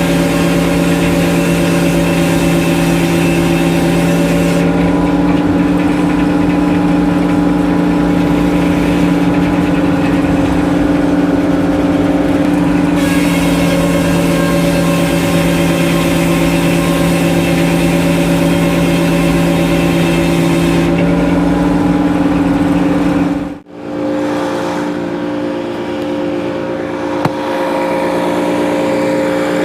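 Engine of a sawmill rig running steadily at speed. About three-quarters of the way through it cuts off sharply and the steady running picks up again at a slightly different pitch.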